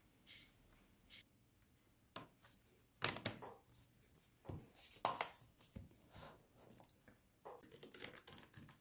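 Aluminium bottom cover of a Dell XPS 9560 laptop being set in place and pressed down by hand, giving scattered light clicks, taps and scrapes as its edges seat onto the chassis.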